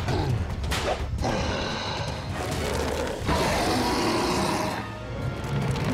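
Cartoon sound effects of a large Tyrannosaurus rex stomping and roaring over a low rumble, the rough roar loudest from about three to nearly five seconds in.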